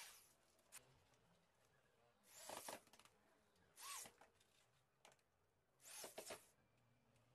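Corded electric drill-driver driving small screws into a laminated cabinet panel to fix metal fittings: three short whirring bursts, about two, four and six seconds in, each under a second long.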